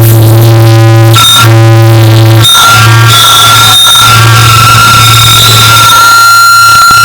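Extremely loud, clipped digital distortion of a cough recording, mangled into a harsh noisy drone with steady buzzing tones. The drone breaks off briefly and restarts a few times.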